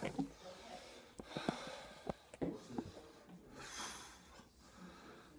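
A man drinking malt liquor from a glass bottle: scattered short gulping clicks and noisy breaths through the nose, with a longer breathy exhale about three and a half seconds in.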